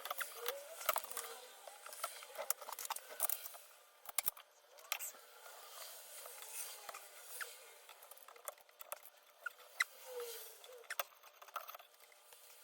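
Irregular small clicks, taps and light rustling from small plastic keyboard parts being handled and fitted, several sharp clicks a second at times.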